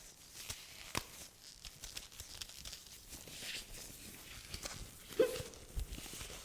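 A woman hiccupping: a sharp click about a second in, then a louder hiccup with a short voiced 'hic' near the end.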